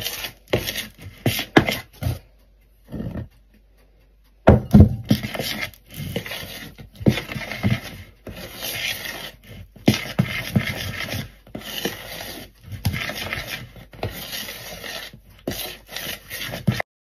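Metal spoon scraping and stirring through thick sponge-cake batter in a plastic mixing bowl, in irregular strokes as the flour is folded in, with a pause of about two seconds early on.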